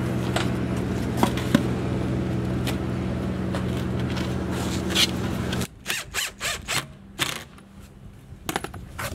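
A steady low machine hum with light scrapes and clicks of a plywood panel being handled and set into place; the hum cuts off suddenly a little over halfway. After that come a few short, sharp clicks and knocks while a cordless drill is worked at the panel's edge.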